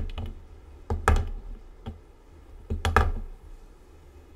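Small paint bottles being set down and shuffled on a cutting mat, knocking against the mat and each other: a few short clicks and knocks about a second apart, some in quick pairs.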